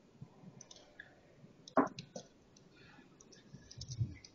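A few quiet, scattered clicks and taps, the sharpest about two seconds in, and a dull low thump near the end.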